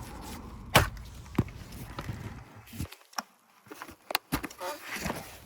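Sharp clicks and knocks of plastic dashboard trim and fittings being handled and unclipped during disassembly, a single loud knock a little under a second in and a quick cluster of clicks around four seconds in.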